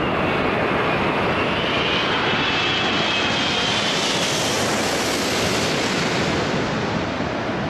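Airbus A380-861's four Engine Alliance GP7200 turbofans at approach power as the airliner passes low overhead: a steady, loud jet roar with a high whine partway through. The hiss peaks about five seconds in, then eases near the end as the aircraft moves away.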